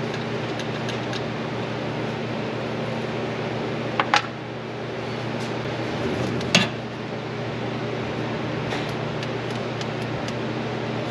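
Steady mechanical hum with no rhythm. Over it come sharp clicks from hands working at the ignition wiring, two close together about four seconds in and a louder one a couple of seconds later.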